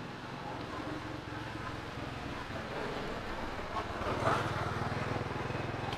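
An engine running steadily, growing louder about four seconds in, with a brief rustle around the same time.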